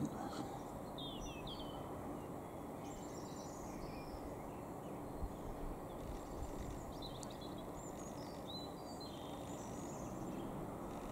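Faint bird chirps and calls several times over a steady low background rumble of outdoor ambience.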